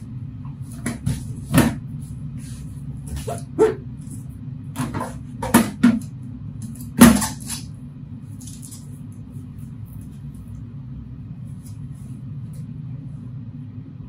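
Knocks and scrapes of a TOA TS-780 conference system central unit, a metal rack box, being turned around by hand on a cardboard box. There are about five clunks in the first seven seconds, the loudest about seven seconds in, over a steady low hum.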